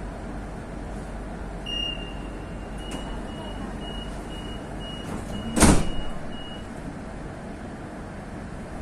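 Metro train door-closing warning: one high beep, then a quick run of about ten short high beeps, about three a second. Partway through the beeps the carriage's sliding doors slam shut with one loud bang, over the steady hum of the stopped train.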